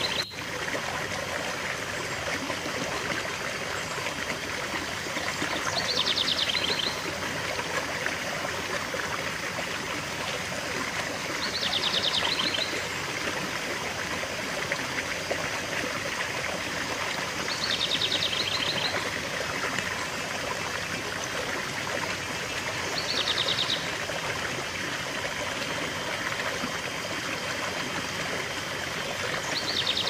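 Small rocky stream splashing steadily over a low cascade into a shallow pool. A bird's short, fast trill repeats about every six seconds.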